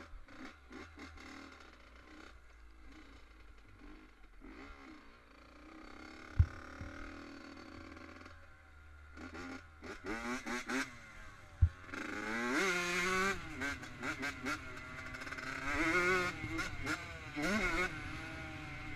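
Honda CR85R two-stroke motocross engine being ridden, quieter for the first several seconds and then revving up and down repeatedly in rising and falling pitch from about ten seconds in. Two sharp single knocks stand out as the loudest sounds, about six and about twelve seconds in.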